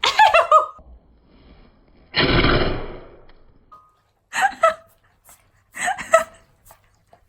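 Husky-malamute cross giving one long, loud burp about two seconds in, with short vocal sounds before and after it.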